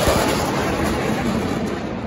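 Jet noise from an F/A-18's twin engines as the fighter passes low and flies away, a dense rushing sound that fades steadily.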